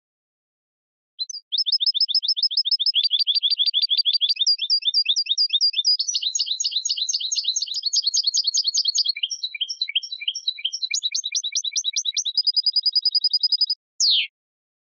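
European goldfinch singing: about a second in, a long, fast song of rapid repeated twittering notes starts and runs for some twelve seconds, shifting through several phrases. It ends in a steady trill followed by one quick falling note.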